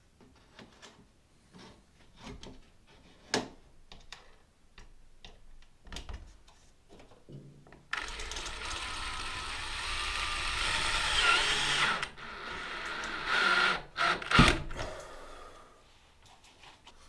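A small handheld power tool runs for about four seconds, starting and stopping abruptly, then runs again briefly, with clicks and knocks of handling around it and one sharp knock near the end.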